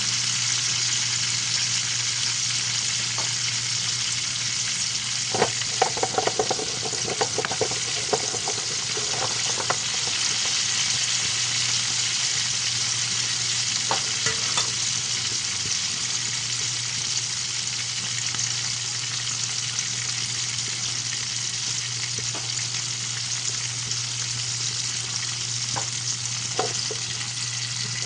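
Milkfish frying in hot oil in a pan, a steady sizzle, with a run of sharp clicks and pops about a quarter of the way through and a few more later.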